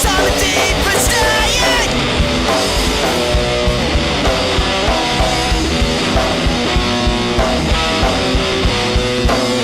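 Punk rock band playing an instrumental passage: distorted electric guitar, bass and drums keeping a steady, driving beat, with bending guitar notes in the first two seconds.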